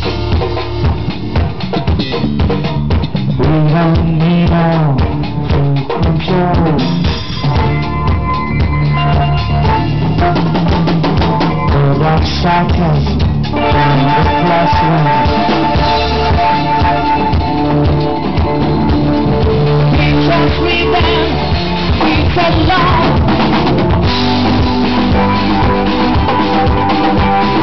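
A live band playing, led by a drum kit with rimshots and bass drum under a bass line. From about halfway through, held melody notes join on top.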